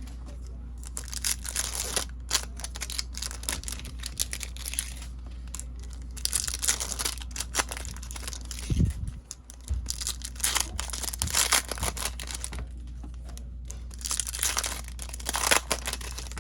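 Foil trading-card pack wrappers crinkling and tearing in irregular spells as packs are handled and opened, over a steady low hum.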